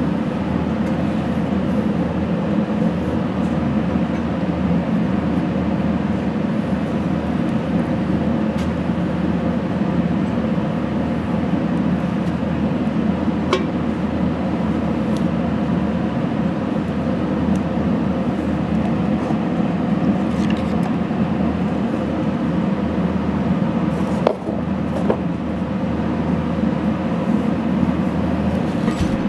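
A steady mechanical hum runs throughout, with a few faint clicks and one sharper knock about 24 seconds in as the cast-iron motor end housing is handled.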